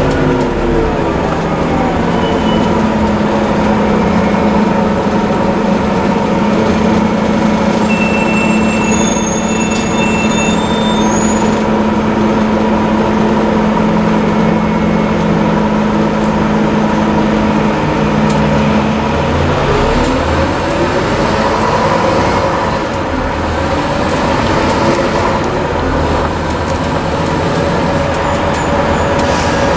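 Scania N230UD double-decker bus heard from inside the cabin, its diesel engine and drivetrain running as the bus drives. The engine note drops at the start, holds steady for most of the stretch, then climbs again as the bus picks up speed about twenty seconds in.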